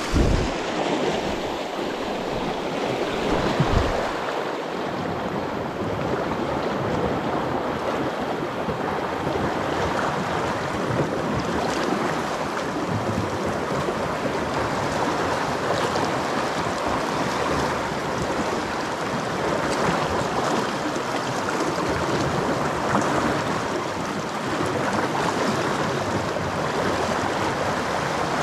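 Swift, muddy river rushing steadily through rapids, a continuous loud wash of moving water.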